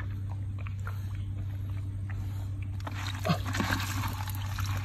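Fish and water tipped out of a container into shallow water, splashing and sloshing heavily from about three seconds in until near the end. Before that there are only light scattered drips and small splashes.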